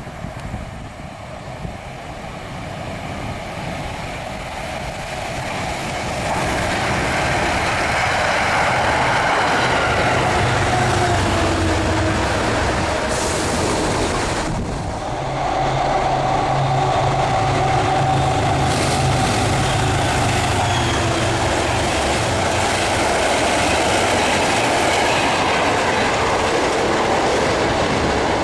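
Passenger train passing close by: the rumble of wheels on rail swells over several seconds as it approaches, then runs loud and steady with a low hum and a faint whine in it, dipping briefly about halfway. It cuts off suddenly at the end.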